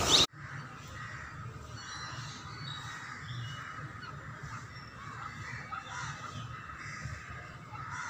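Scattered faint bird calls and chirps over a low steady hum, after a short loud burst at the very start.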